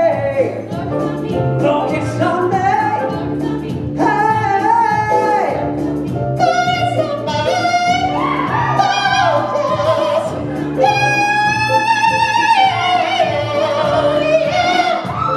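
A singer's voice over backing music with a steady, repeating bass line, holding long notes with vibrato, the longest one near the middle.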